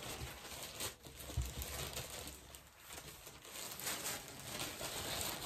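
Plastic shipping and clothing bags crinkling and rustling as they are opened and handled, in a run of irregular crackles, with a soft thump about a second and a half in.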